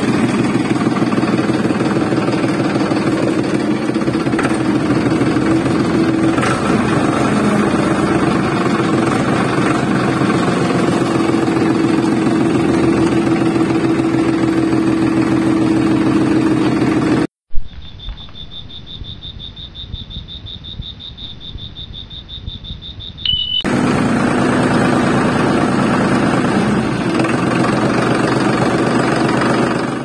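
Motor of a DIY mini tractor running steadily with a dense, engine-like mechanical drone. About 17 seconds in it cuts to a quieter stretch with a thin, steady high whine for about six seconds, then the running sound returns.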